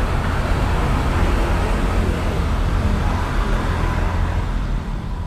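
Road traffic going by: a steady low rumble of passing vehicles that eases a little near the end.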